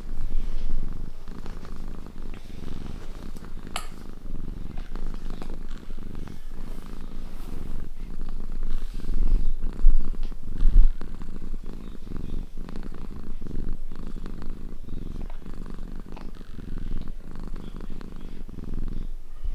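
Domestic cat purring steadily, close to the microphone.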